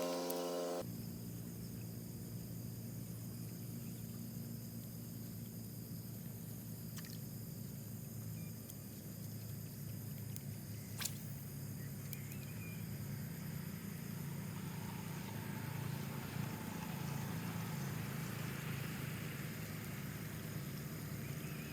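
A steady low outdoor rumble, with a faint steady high hum above it and one sharp click about eleven seconds in; a few notes of music end in the first second.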